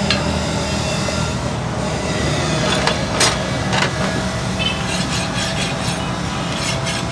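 A motor hums steadily in a metalworking shop. There are a couple of sharp metal strikes about three seconds in, then a quick, regular rasping of about five strokes a second near the end.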